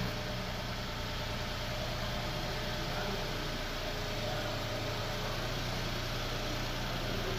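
Toyota Vitz's 1000 cc inline three-cylinder engine idling steadily.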